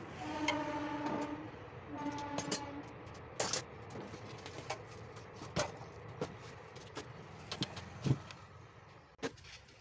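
A horn sounds in two steady, flat-pitched blasts in the first three seconds. Then come scattered metal clinks and knocks from hand tools on a cut-off saw being reassembled, the loudest a thump about eight seconds in.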